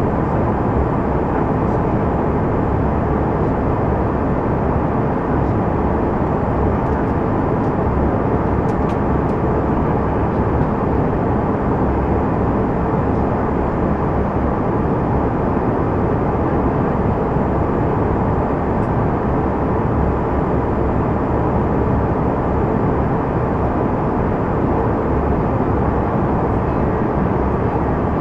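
Steady roar of cabin noise inside a Canadair CRJ200 regional jet in flight: rushing air and its two rear-mounted General Electric CF34 turbofan engines, holding one even level throughout.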